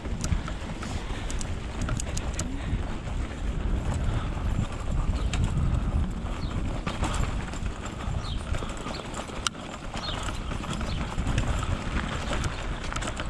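Mountain bike being ridden over a rough dirt trail. Wind rumbles on the microphone while the tyres and the rattling bike give scattered clicks and knocks.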